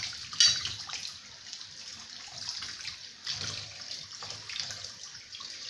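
Soapy water sloshing and splashing in a kitchen sink as a revolver is swished through it for rinsing, with one louder splash about half a second in.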